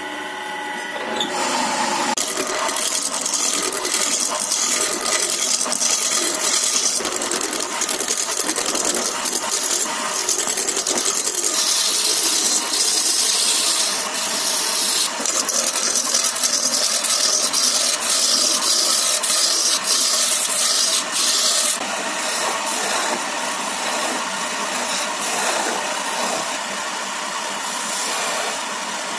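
Wood lathe running, first with a steady motor hum, then from about a second in with a hand gouge cutting a spinning wooden blank: a continuous hissing, scraping cut as shavings fly off. The cutting is harsher through the middle and lighter near the end as a skew chisel smooths the surface.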